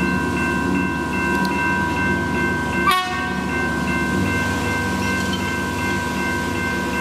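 Level crossing warning bells ringing steadily at lowered boom gates, over the low rumble of an approaching X'trapolis electric train. A sharp clank sounds about three seconds in.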